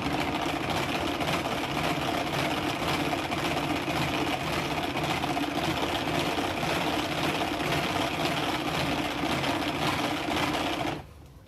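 A mixer whisking pudding mix into milk, a steady whirring that stops about eleven seconds in.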